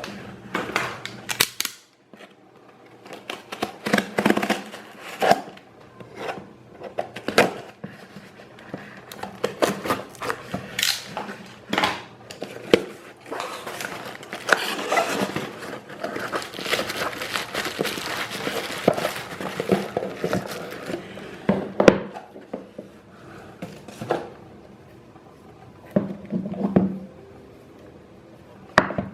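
Hands opening and handling a Xiaomi Mi Band 2's packaging: irregular clicks, taps and knocks of cardboard and plastic, with a longer crinkling rustle in the middle.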